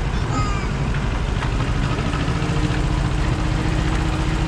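An engine running steadily with a low rumble, with a faint steady hum joining about halfway through.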